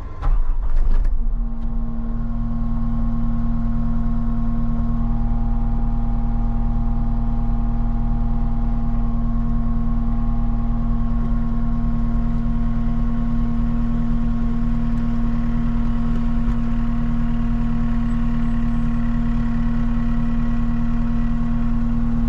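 CAT 279D compact track loader's diesel engine running steadily with a constant droning tone. It comes up in the first second or so, then holds at an even speed.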